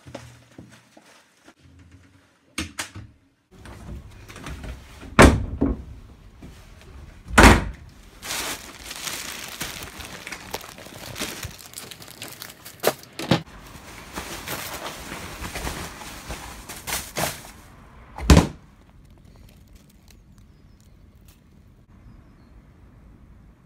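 Doors and a wheelie-bin lid banging shut: three loud thuds, about five seconds in, about seven and a half seconds in and near eighteen seconds, with rustling and handling knocks of rubbish going into the bin in between. It quietens to a faint steady background for the last few seconds.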